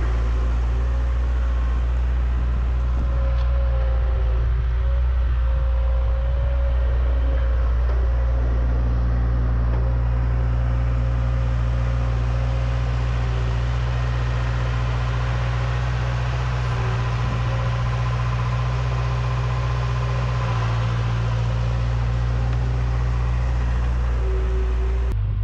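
A John Deere 270 skid steer on Loegering VTS tracks, its engine running steadily and loud as the machine drives and pushes asphalt millings with its bucket. The engine note shifts slightly a few times as it works.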